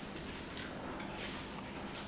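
A few light, scattered taps and clicks from toddlers handling a plastic ride-on toy car.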